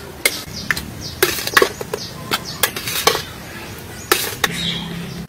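Metal ladle and spoon clinking and scraping against a stainless steel bowl while scooping and stirring soft boiled potato slices, in a string of irregular sharp clinks.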